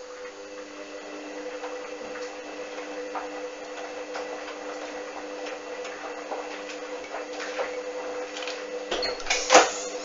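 Hoover A59 washing machine's drum motor starting up and turning the drum of laundry: a steady motor hum with small knocks as the washing tumbles, and one louder thump about nine and a half seconds in.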